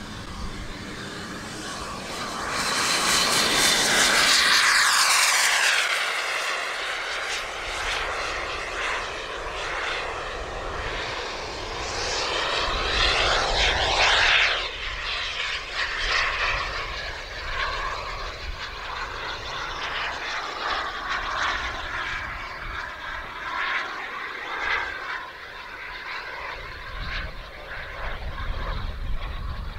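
Turbine engine of a radio-controlled Gloster Javelin scale jet whining steadily, swelling loudest as the model passes close about three to five seconds in, and again about twelve to fourteen seconds in with a falling pitch as it flies by. In between and after, the whine fades and swells as the jet flies around.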